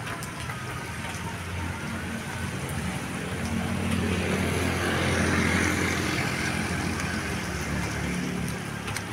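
A bus's diesel engine running, with the sound swelling to a peak about five seconds in and then easing off as it passes.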